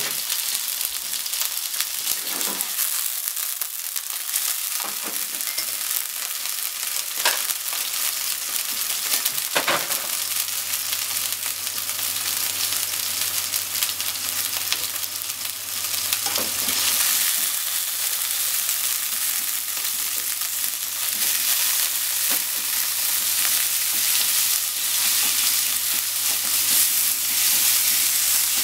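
Ground pork sizzling in oil in a nonstick frying pan, a steady hiss with occasional sharp pops of spattering fat. The sizzle gets louder in the second half, and near the end a wooden utensil stirs and breaks up the meat.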